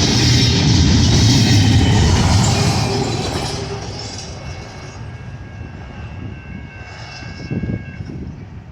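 Freight train cars rolling past on the rails. A loud rumble for about three seconds then fades steadily as the train moves away, leaving a fainter rumble with a few thin, steady high-pitched tones near the end.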